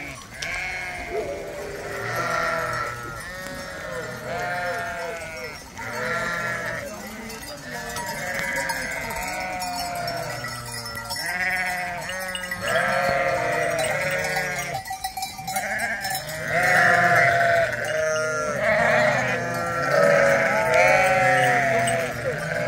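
A flock of goats and sheep bleating, many calls overlapping with hardly a break, louder in the second half.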